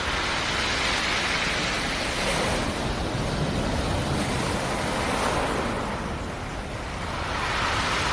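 Black Sea surf: one wave washing in and slowly falling away, with the next one building near the end.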